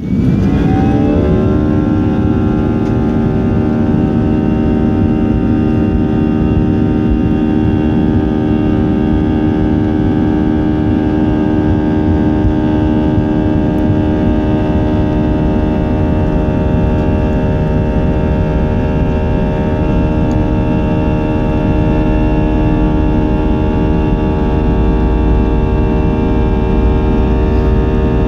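Airbus A320's twin jet engines heard from inside the cabin during the takeoff roll: a whine rising in pitch over the first second or so as the engines spool up, then holding a steady whine over a dense low rumble, the rumble growing stronger near the end.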